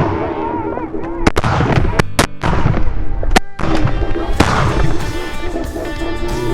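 Shotgun fire at a snow goose flock: about half a dozen sharp shots in quick succession between one and three and a half seconds in, with snow geese calling around them and background music underneath.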